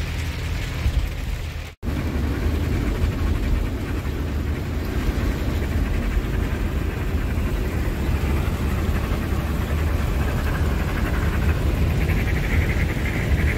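Heavy truck driving on a highway, heard from inside the cab: a steady low engine drone with road noise. The sound drops out for an instant about two seconds in.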